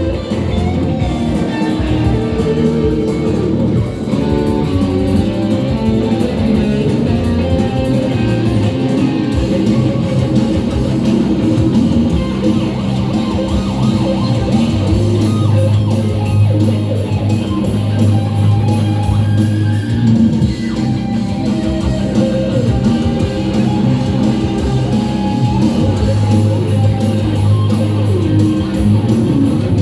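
Rock music played live with no singing: guitar leads over a bass guitar.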